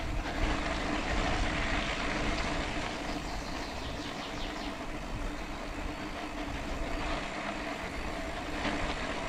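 Bicycle riding through thick mud on a forest track: a steady noise of the tyres rolling through mud and the drivetrain working under heavy load, with a faint steady hum.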